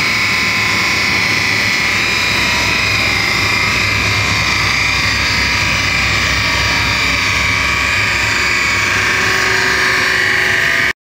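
Whipple-supercharged V8 of a 2010 Camaro running steadily on a chassis dynamometer, not revving: a high whine over a low rumble. The sound cuts off suddenly near the end.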